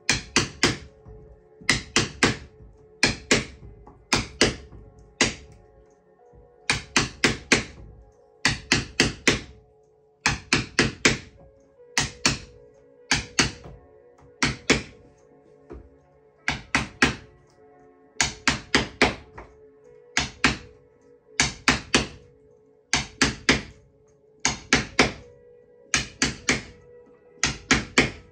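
A wooden mallet tapping a wedge to drive pressed-cane webbing down into the groove of a chair seat: sharp knocks in quick groups of two to four, a group about every second. Quiet background music plays under the taps.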